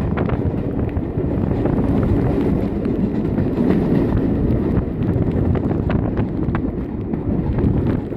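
Steam-hauled passenger train running, heard from an open carriage window: a steady rumble of the carriages on the rails with wind rushing over the microphone.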